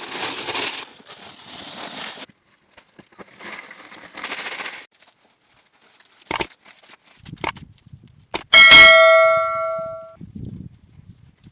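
Two rasping scrapes, a few sharp knocks, then a hard strike on a metal object that rings clearly for about a second and a half before fading.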